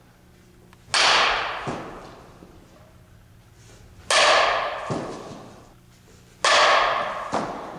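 Softball bat striking front-tossed softballs three times, about every two and a half seconds. Each hit is a sharp crack that rings out and fades over about a second, and a softer knock follows each one.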